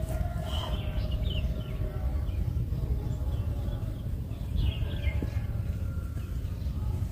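Steady low wind rumble on the microphone on an open field, with birds chirping briefly about half a second in and again around five seconds in.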